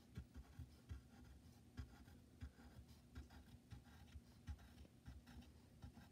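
Faint scratching of a pen on paper as a drawing is sketched, with small irregular taps and soft bumps, over a faint low steady hum.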